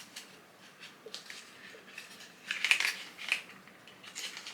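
Small product packaging being handled: faint clicks and two short rustles in the middle.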